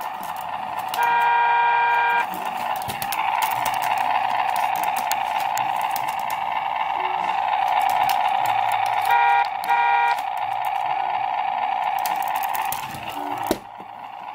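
Electronic sound effects from a Hasbro Ultimate Bumblebee Transformer toy's small speaker: a car-horn honk about a second in, then a steady car-engine running sound, two short honks about nine seconds in, and a sharp click near the end.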